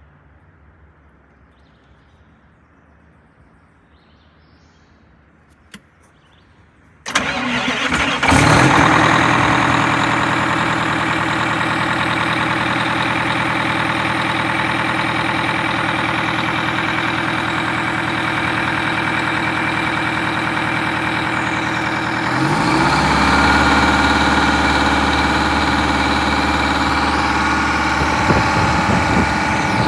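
Wanderlodge bus engine starting cold about seven seconds in, catching at once and settling into a steady idle. About two-thirds of the way through it runs louder and deeper.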